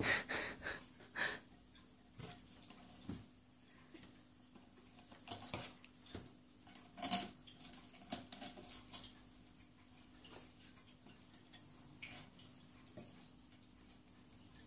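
Ferrets moving about inside a wooden nest box: short scrapes, scratches and light knocks of claws and bodies against the wood, in several flurries.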